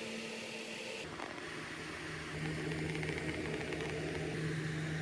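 A steady machine hum. Its pitch shifts suddenly about a second in, and it grows louder a little past the middle.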